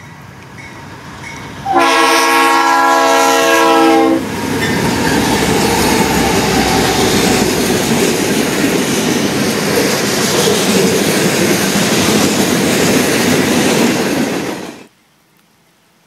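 Norfolk Southern freight train passing close by. A faint rumble grows as it approaches. About two seconds in the locomotive's horn sounds one loud chord for about two and a half seconds. Then the locomotives and freight cars roll past on the rails until the sound cuts off suddenly near the end.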